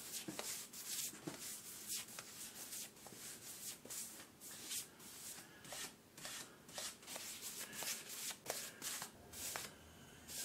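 Paintbrush strokes laying water-based polyurethane onto a wooden workbench top: a run of soft swishes as the bristles drag across the wood, about once or twice a second.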